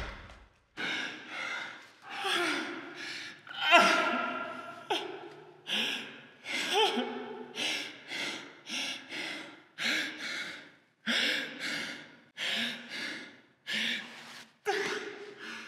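A man sobbing, with gasping, shaky breaths and voiced cries coming about once a second.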